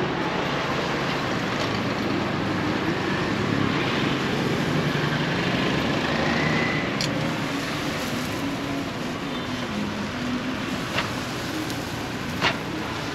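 Steady roadside traffic noise with vehicle engines passing. Near the end there are a couple of short sharp clicks.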